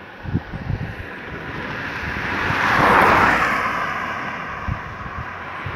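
A car passing close by on a wet road, its tyre hiss swelling to a peak about three seconds in and fading as it drives away. Wind buffets the microphone now and then.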